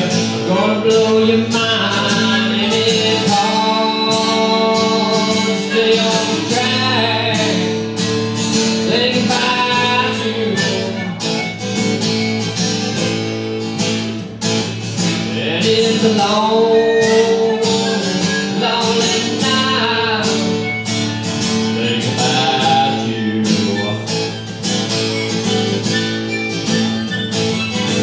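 Live acoustic country music: strummed acoustic guitar with a sustained lead melody that bends in pitch over it, and no sung words.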